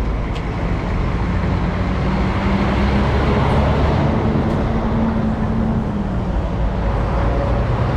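A motor vehicle's engine running with a steady low hum, its pitch rising slightly midway and settling again.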